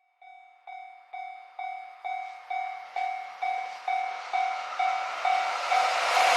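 Railway level-crossing warning bell ringing its repeated electronic tone, about two strikes a second, growing louder. Toward the end the rushing noise of an approaching train builds up under it.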